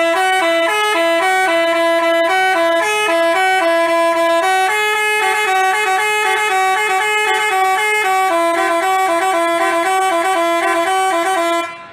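Basuri multi-tone telolet bus horn playing a quick melody of stepping horn notes. It starts suddenly and cuts off just before the end.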